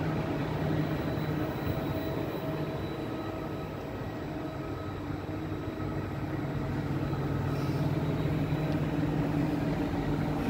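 Trenitalia double-deck regional electric train rolling slowly past at close range: a steady rumble with a faint electric whine held over it.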